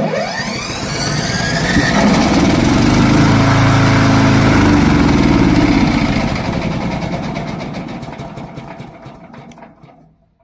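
Gasoline engine of a VTLM800 remote-controlled crawler brush mower starting up by remote control and running. It comes in suddenly, builds over the first two seconds, runs steadily, then fades away near the end.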